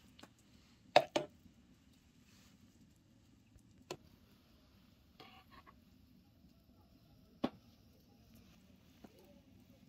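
A few sharp clicks and knocks of a spoon against a metal baking pan as pumpkin filling is spread and a topping spooned in. The loudest are two knocks close together about a second in, then single clicks near four and seven and a half seconds.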